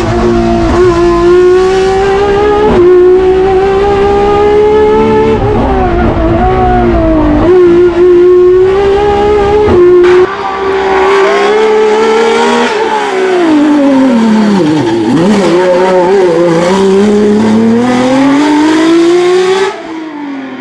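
Naturally aspirated BMW S38 straight-six, de-stroked to 3.3 litres and revving to about 10,500 rpm, in a Ford Escort Mk2 race car, heard from inside the cockpit at full throttle. The note holds high with a few short breaks at gear changes, then falls steeply as the car slows for a corner about twelve to fifteen seconds in, and climbs again. Near the end it turns suddenly quieter.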